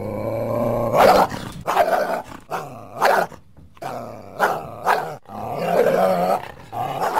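Coyote growling low, then giving a string of short, sharp barks, with a longer growling call about five seconds in and another bark near the end.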